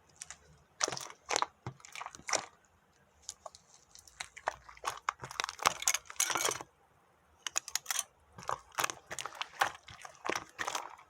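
Crunching in irregular clusters of sharp crackles with short pauses between them, like something crunchy being bitten and chewed.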